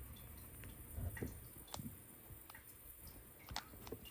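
A few faint, irregular clicks and light taps, spaced unevenly, over a low steady room hum.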